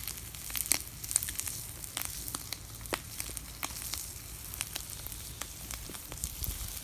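Potato wedges, onions and bacon-wrapped sausages sizzling in oil in a steel pan over a campfire: a steady frying hiss with frequent sharp little pops.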